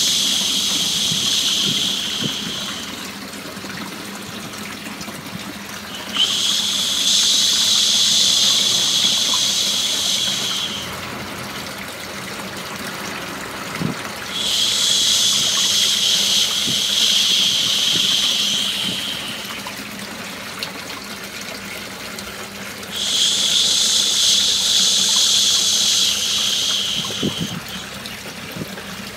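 A person's long, drawn-out 'shhh' shushes, each about four seconds, repeating about every eight seconds over a steady sound of running water: a shushing white-noise track for soothing a baby to sleep. Four shushes, the first already under way at the start.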